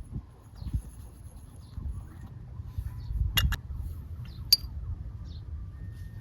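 A few sharp clinks, a quick pair and then one more about a second later, over a steady low rumble.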